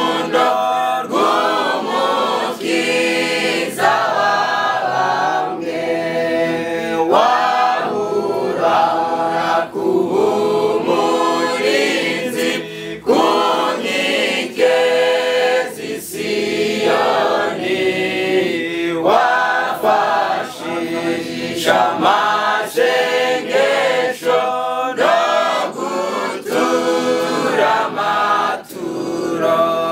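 Choir singing a hymn a cappella, several voices in harmony with no instruments.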